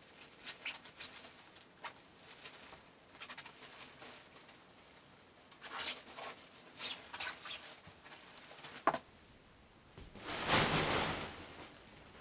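Nylon pop-up tent fabric rustling and crinkling in short, irregular bursts as it is handled, then a louder, longer swish of fabric about ten seconds in.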